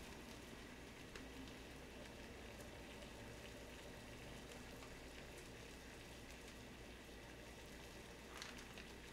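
Faint, steady hiss of a lidded pot of water boiling on a gas stove, with a few soft ticks as the noodles are pulled apart by hand.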